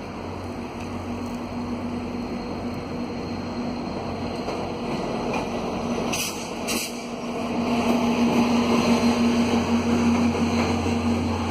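Via Rail F40PH diesel locomotive approaching and rolling onto a steel railway bridge. Its engine drones steadily and grows louder from about eight seconds in as the train arrives.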